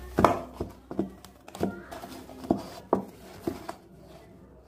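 Rice-flour dough being kneaded by hand in a stainless steel bowl: irregular knocks and slaps of the dough and hand against the steel, about two a second, stopping a second before the end.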